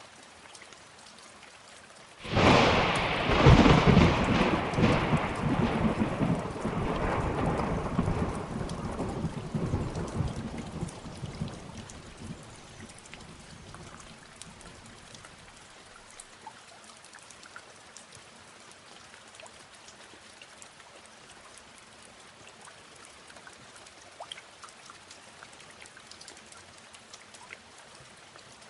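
A thunderclap breaks sharply about two seconds in and rumbles away over some ten seconds, over steady rain with scattered drips.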